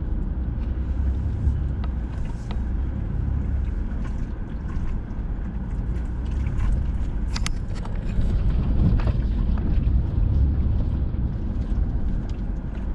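Vehicle crawling over a rough dirt trail: a steady low rumble of engine and tyres on rock and gravel, with a few sharp knocks and clicks from the bumpy ground, the sharpest about seven seconds in.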